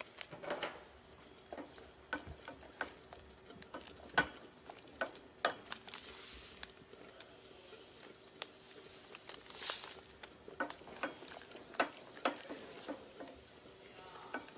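Kitchen work at the stove: irregular clicks and knocks of utensils and cookware, with a couple of brief rustles, over a faint steady hum.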